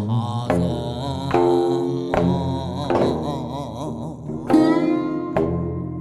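Music on plucked string instruments: single notes struck about once a second and left to ring, their pitch sliding and wavering, over a steady low drone.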